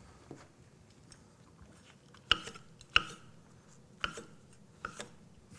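Chef's knife slicing oyster mushrooms on a thick wooden chopping block: about five separate knocks of the blade meeting the wood, the loudest two near the middle.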